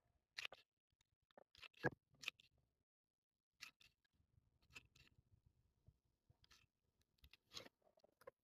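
Near silence with faint, scattered clicks and rustles from working a small hot melt glue gun while laying glue on a crocheted base.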